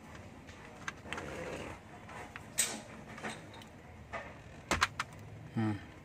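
Small plastic clicks and rustling as a T5 LED bulb and its twist-in socket are handled in a car's AC control panel, with several sharp clicks, the loudest about two and a half and just under five seconds in, and a short low-pitched sound near the end.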